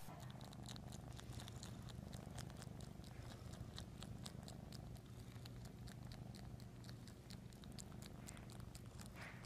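Cat purring steadily, a low continuous purr close to the microphone, with many small wet clicks from its tongue licking at a cloth.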